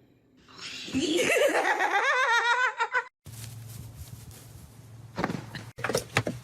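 A loud, high-pitched wavering vocal sound that rises in pitch and lasts about two and a half seconds before it is cut off abruptly. A low steady hum with a few knocks follows.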